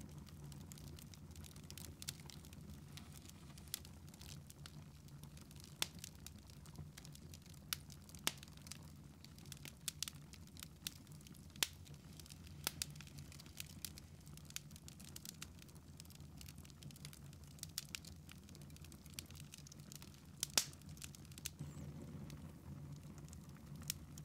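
Wood fire in a fireplace crackling, with irregular sharp pops a few times a second, some louder than the rest, over a low steady hum.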